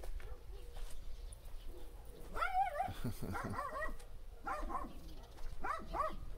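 A dog whining and yipping: about five short, high, wavering cries in quick groups, starting a couple of seconds in.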